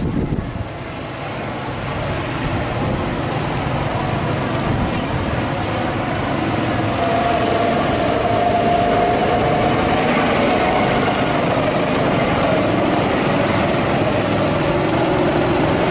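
Go-kart engines running as several karts lap the track, a steady mechanical drone that grows over the first couple of seconds; for a few seconds in the middle one engine's note stands out above the rest.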